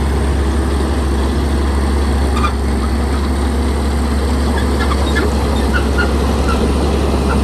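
Heavy diesel earthmoving machinery running steadily, a deep continuous engine rumble. Short high squeaks or chirps come through over it several times, mostly in the second half.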